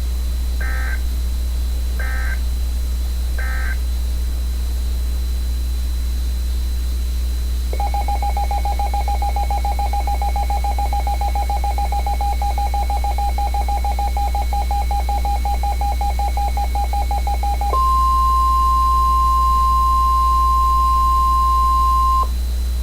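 Emergency Alert System signal on NOAA Weather Radio: three short squawks of SAME header data about a second and a half apart, then a ten-second buzzing two-tone attention signal, then a steady single alert tone of about 1 kHz for several seconds, announcing a flood warning. A low mains hum runs under it.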